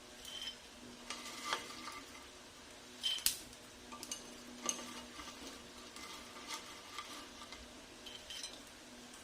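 A metal utensil stirring and scraping in a cooking pan, clinking irregularly about once a second, over a low steady hum.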